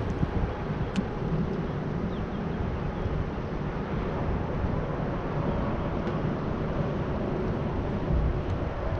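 Wind buffeting a camera microphone on a bass boat, a steady rumbling noise with a faint even hum beneath it and one small click about a second in.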